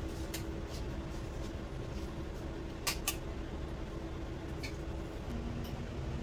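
Eggs cracked on the rim of a ceramic bowl: two sharp taps close together about three seconds in, with a few lighter clicks before and after, over a steady low kitchen hum.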